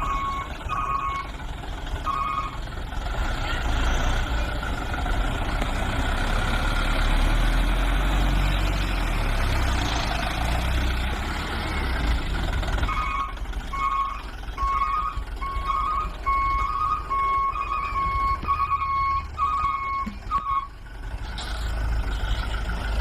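Vehicle reversing beeper sounding a beep about twice a second, slightly alternating in pitch. There are a few beeps at the start and a longer run through the second half, over a steady low rumble with a stretch of hiss in between.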